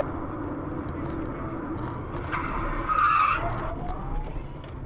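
A car's tyres skidding for about a second, roughly two and a half seconds in, over steady engine and road noise.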